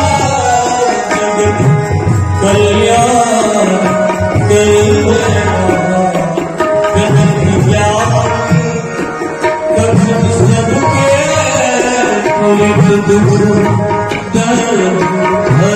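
Instrumental interlude of a Hindu devotional bhajan: tabla keeping a steady rhythm under a harmonium melody.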